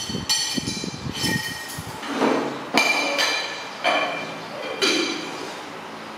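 Ceramic bowls and a bowl lid being handled: about five clinks and knocks of china on china, each ringing briefly.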